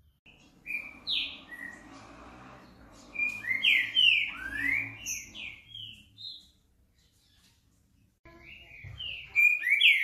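Green-winged saltator (trinca-ferro) singing loud whistled phrases of slurred, gliding notes. The song breaks off for about two seconds in the middle, then starts again.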